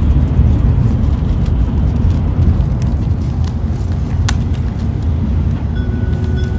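Shinkansen cabin noise: the train's steady low running rumble, with a few sharp clicks from hands untying the string and paper wrapping of a bento box.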